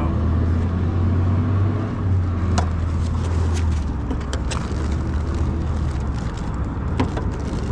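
Low steady rumble of a motor vehicle, louder for the first few seconds and then easing, with a few sharp clicks.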